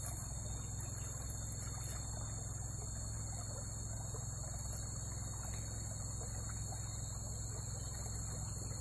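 Steady outdoor ambience: a constant low hum with an even, high-pitched drone above it, unchanging throughout.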